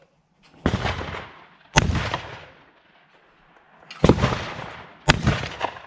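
Shotgun fired at clay targets: four loud shots in two pairs, the two shots of each pair about a second apart, each shot trailing off over about a second.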